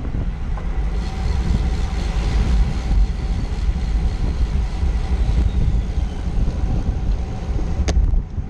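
Wind buffeting the microphone of a camera on a road bicycle moving at speed in a pack, a steady low rumble with tyre noise under it and one sharp click near the end.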